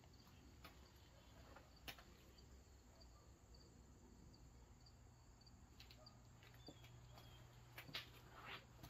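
Near silence: faint room tone with a soft high chirp repeating about three times a second through the first half, a low hum, and a few soft clicks.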